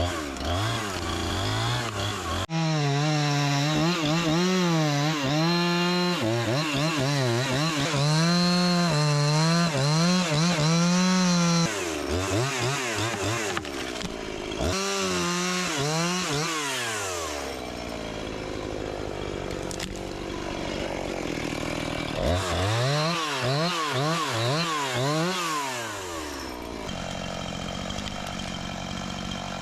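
Chainsaw cutting through a spruce log. The engine speed keeps rising and dipping under load through several cuts, then drops to a steady idle near the end.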